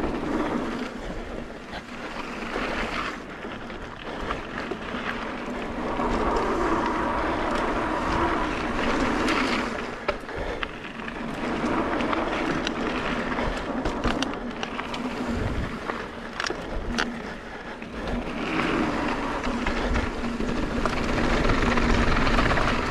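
Mountain bike riding down dirt singletrack: a steady rush of knobby tyres rolling over dirt and rock, with the bike rattling and several sharp knocks as it goes over bumps.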